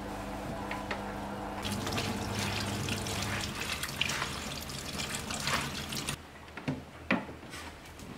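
Kitchen tap running onto water spinach leaves in a plastic colander in the sink as the leaves are rinsed by hand. The water starts about one and a half seconds in and stops abruptly about six seconds in, followed by a couple of light clicks.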